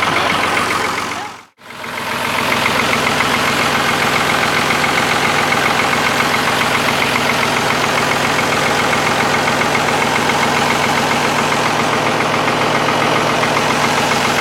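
An engine running steadily at an even speed. It drops out briefly about a second and a half in, then comes back.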